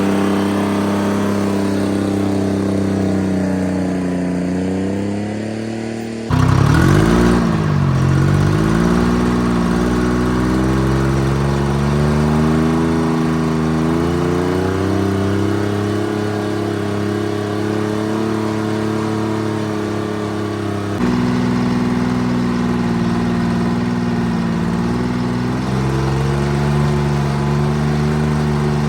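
Timberjack 225D skidder's diesel engine running under changing load, its pitch sagging and climbing again as the throttle and load vary. About six seconds in the sound jumps louder and the engine note dips sharply and recovers, and it changes abruptly again about 21 seconds in.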